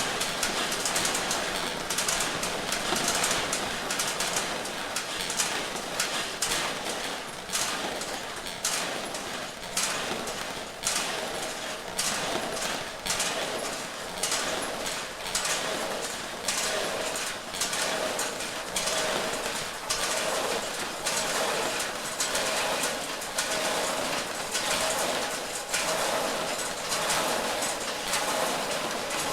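Swinging church bells ringing, their clappers striking again and again in an uneven rhythm, each stroke's ringing tone overlapping the next.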